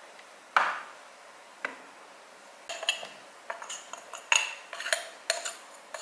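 Espresso portafilter and tamper being handled: one knock, then a run of sharp, ringing metal clinks.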